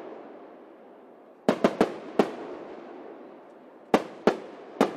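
Aerial firework shells bursting: a quick run of four sharp bangs about a second and a half in, then three more near the end, each trailing off in a rumbling echo.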